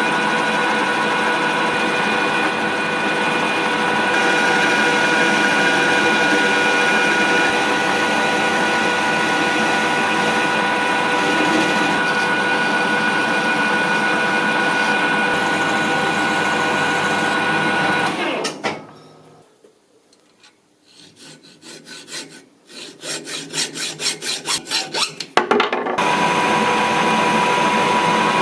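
Metal lathe running and cutting a steel bar: a steady machine noise with a gear and motor whine. About two-thirds of the way through it cuts out. A quick rhythmic pulsing builds up, and then the steady running returns.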